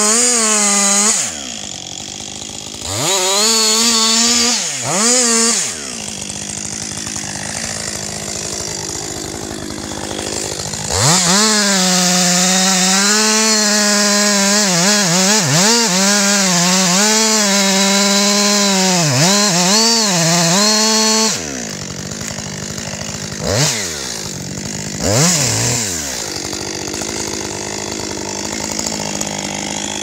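Two-stroke chainsaw revving briefly and dropping back to idle, then running at full throttle for about ten seconds while cutting the felling notch into a large tree trunk, its pitch sagging and recovering under the load of the cut. It then returns to idle with two short blips of the throttle.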